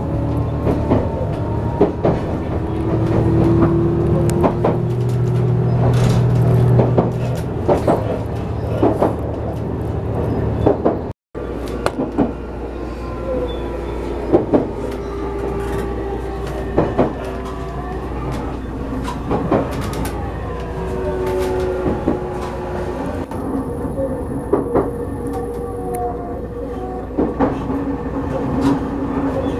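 HB-E300 series hybrid railcar running, heard from inside the car: a steady rumble, wheels clicking over rail joints every second or so, and whining tones from the drive that slowly rise and fall in pitch. The sound breaks off briefly about eleven seconds in, and the low rumble is heavier afterwards.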